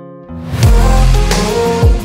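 Background music: a quiet held chord, then about half a second in a loud electronic beat enters with deep bass notes that slide down in pitch.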